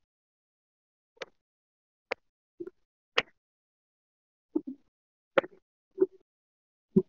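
A series of short, sharp pops at irregular intervals, about nine in seven seconds, with silence between them.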